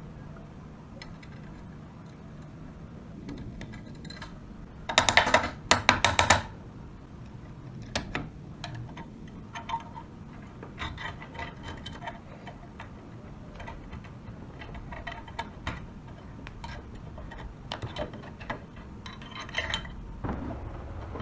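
Scattered metallic clicks and taps, with a loud rapid clatter of strikes about five seconds in.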